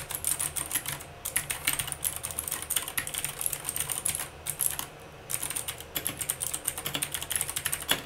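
Fast typing on a Langtu LT84 mechanical keyboard fitted with Gateron Blue clicky switches and Weikav keycaps: a dense, irregular run of key clicks, with a short gap about five seconds in. The click is less crisp than expected, which the owner says lacks clickiness.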